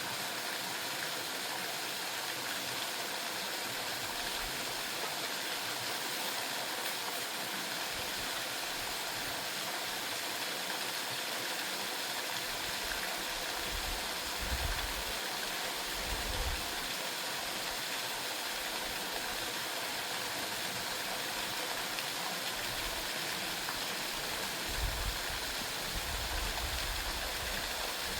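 Waterfall rushing: a steady, even hiss of falling water. A few brief low bumps come through, the strongest about halfway and near the end.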